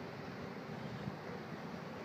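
Steady low rumble and rushing noise of a ship under way on the river.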